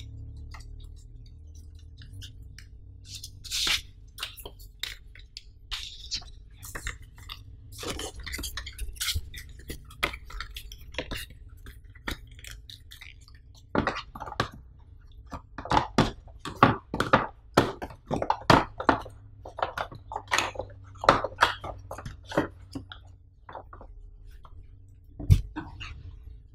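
Close, crisp rustling and crinkling of paper leaflets and card packaging being handled, in irregular sharp crackles that grow busier and louder about halfway through. A single knock comes near the end.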